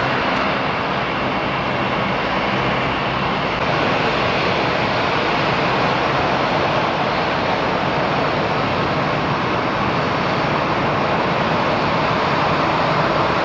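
Aircraft taxiing with engines at low power, a steady loud roar. For the first three or four seconds a Dash 8 turboprop's propeller hum runs under it. The hum then gives way to the even whoosh of an Airbus A319's jet engines.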